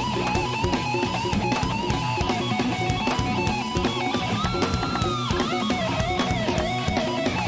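Live instrumental progressive metal: a distorted electric guitar lead with wide vibrato over drums. About four and a half seconds in it holds a high bent note for under a second, then slides back down.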